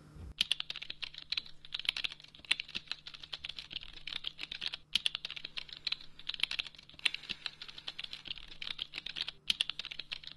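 Rapid typing on a laptop keyboard: a dense, uneven stream of key clicks starting just under half a second in, with two brief pauses.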